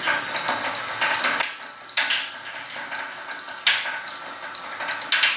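Vertical blind slats clinking and clattering against each other as a motor-driven bead chain turns them open, with three sharper clacks about two, three and a half, and five seconds in.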